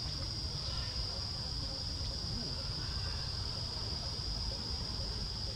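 Steady, high-pitched drone of insects, unbroken throughout, over a low rumble.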